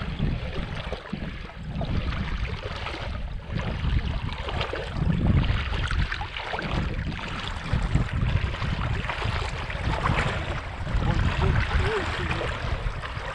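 Wader-clad legs pushing through knee-deep shallow sea water at a steady walk, with continuous sloshing and splashing.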